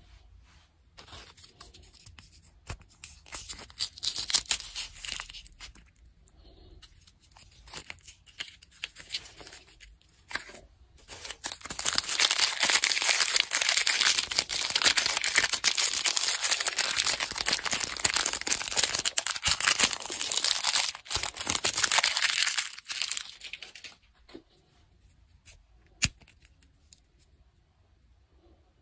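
Plastic Snickers candy-bar wrapper being crinkled and torn open by hand, with scattered crackles at first and then a long loud stretch of dense tearing and crinkling from about twelve seconds in. A single sharp click comes near the end.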